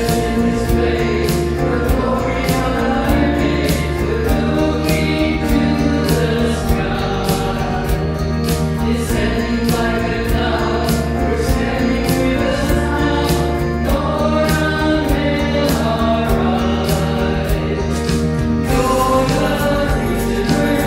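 Mixed vocal ensemble of men and women singing a contemporary worship song in harmony over a keyboard backing track made on a Yamaha PSR-SX900 arranger keyboard, with sustained chords, bass and a steady beat.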